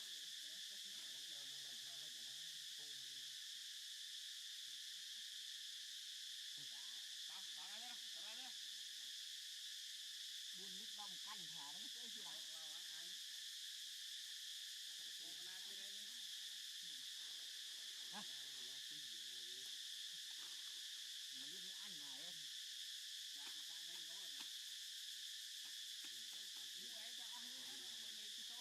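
Steady, high-pitched insect chorus of crickets or cicadas, an unbroken shrill drone. Faint voice-like sounds come and go underneath.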